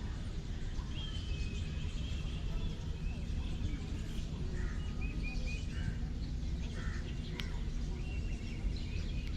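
Outdoor ambience: a low steady rumble with scattered short bird chirps and calls.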